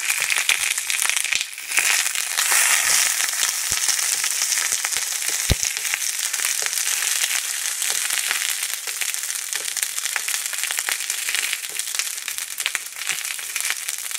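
Whole long green peppers and garlic cloves frying in hot oil in a pan: a steady sizzle with frequent crackles and pops.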